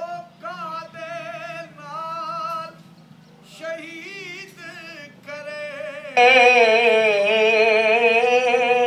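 A man singing a Punjabi Sufi kalam into a microphone through loudspeakers, unaccompanied: a few short ornamented phrases with a wavering pitch, then one long held, wavering note from about six seconds in, the loudest part.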